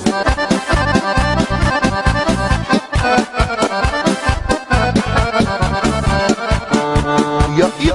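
Instrumental break in a Serbo-Croatian folk song: an accordion plays the melody over a steady beat and bass.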